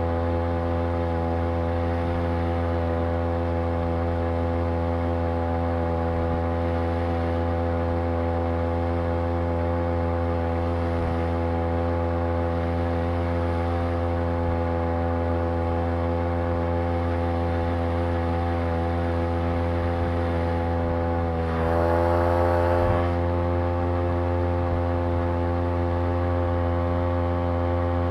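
Small two-stroke outboard motor, a Sailor 2.0 lower unit driven by a Champion T516 trimmer engine, running steadily under way. About three-quarters of the way through it briefly gets louder.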